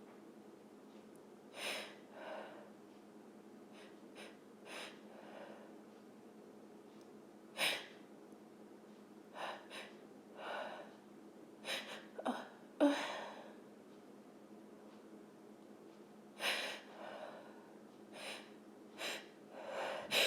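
A woman's short, sharp gasping breaths and sniffs, repeated with pauses between them, as she builds up to a sneeze. The loudest and sharpest burst comes about 13 seconds in.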